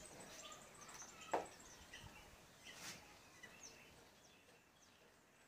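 Quiet outdoor ambience with faint bird chirps, many short high calls. A single sharp click just over a second in is the loudest sound.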